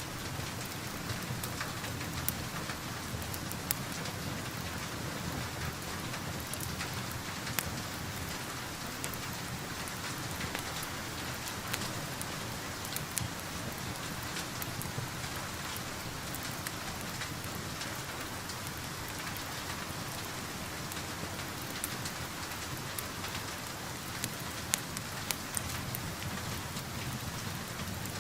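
Steady rain falling, an even hiss with scattered sharp ticks and pops throughout, in a rain-and-crackling-fireplace ambience mix.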